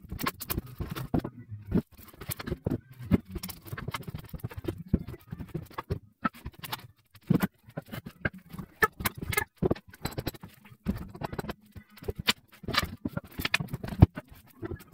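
Steel pry bar levering nailed boards off a wooden pallet to free a 2x4: a run of irregular sharp knocks and cracks of metal on wood.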